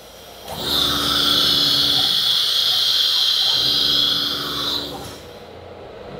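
Compressed air hissing steadily through a CNC router's automatic tool-change spindle as it comes down on a tool holder in the rack to pick it up. It starts abruptly about half a second in and cuts off after about four seconds, leaving a quieter machine hum.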